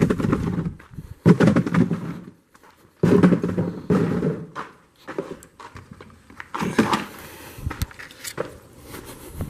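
Handling noise: three rustling, knocking bursts in the first four seconds, then one shorter burst and a few light knocks, as oil-change supplies are picked up and moved about.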